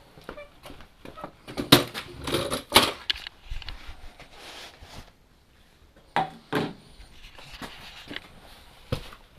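Clattering knocks and rustling of objects being handled and set down, with loud knocks about two and three seconds in and again about six seconds in.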